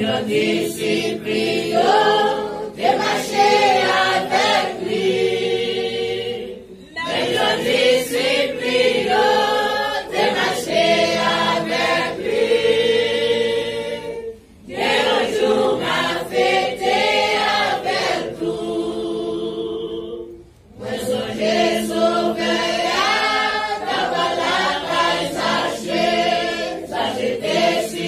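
Church congregation singing a hymn together, in long phrases broken by short pauses between lines.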